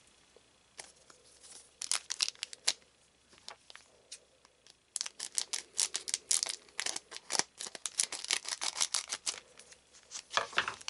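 A trading card booster pack wrapper handled and torn open, in sharp crackles: a short cluster about two seconds in, then a longer run from about five seconds to near the end.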